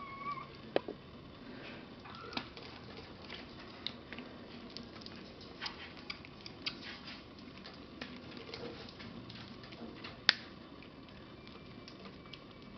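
Kittens suckling and scrabbling at a small feeding bottle: irregular small wet clicks and smacks, with a brief squeak at the start and two sharper clicks, the loudest about ten seconds in.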